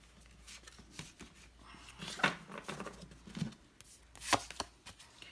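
Tarot cards being handled: cards sliding and rubbing against each other, with a few sharp clicks and taps, the loudest about two and four seconds in.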